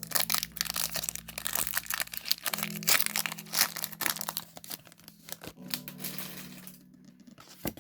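Foil booster-pack wrapper crinkling and tearing as it is opened and handled, a dense crackle of sharp clicks that thins out after about five seconds, over faint background music.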